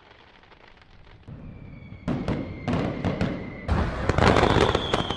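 Fireworks going off. A crackle builds up, then a quick run of sharp bangs starts about two seconds in, over a steady whistle. Near the end comes the loudest dense burst of crackling, with a slowly falling whistle.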